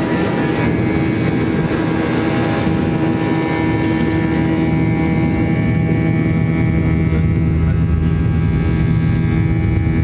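Airliner cabin noise: the jet engines running with a steady rumble and a steady whine over it.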